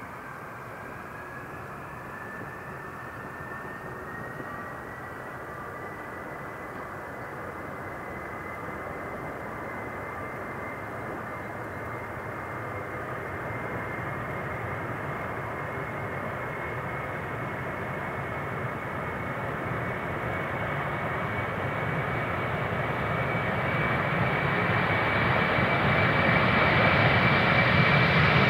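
Boeing 747-400 freighter's four jet engines at takeoff thrust: a whine rises in pitch over the first few seconds and then holds steady over the roar. The whole sound grows steadily louder as the jet rolls down the runway toward the microphone.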